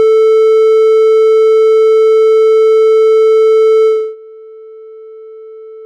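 Synthesized test tone: one steady electronic note, bright with overtones. About four seconds in it drops sharply in volume and turns duller, with a slight warble in pitch. This is a simulation of headphones being taken off: volume drop, high-frequency filtering, Doppler warble and filtered crosstalk between the ears.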